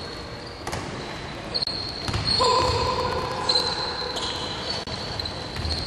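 Basketball game in a large gymnasium: a ball bouncing on the hardwood court and scattered knocks of play, with players' voices calling out, the loudest a held call a little over two seconds in.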